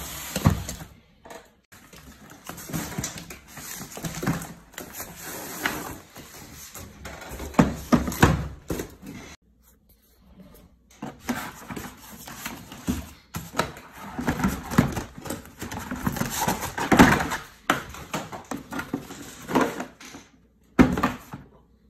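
Cardboard box and its packaging being opened and handled by hand, with irregular rustling and scraping and occasional knocks, and a short pause about ten seconds in. Near the end a hard plastic carrying case is lifted out of the cardboard.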